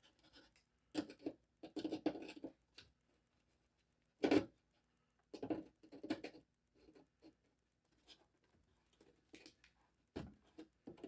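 Irregular plastic clicks, scrapes and knocks from a 1971 Ford Mustang instrument cluster housing being handled while its retaining clips are worked loose. The sharpest knock comes about four seconds in, with another near the end.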